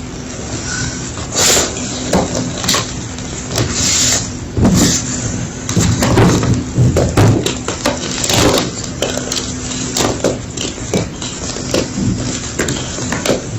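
Homemade gym chalk being crunched: irregular crisp crunches and crackles, thickest and loudest in the middle stretch.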